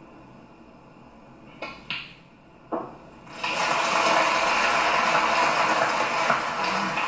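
Snooker balls clicking as a shot is played, with a few sharp knocks about two seconds in, then the arena audience applauding steadily for the last few seconds, heard through a television's sound.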